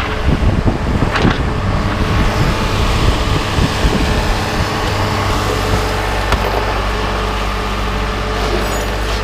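Vehicle engine running steadily, with rattling and knocking over roughly the first five seconds. The engine's note shifts about five seconds in and then holds steady.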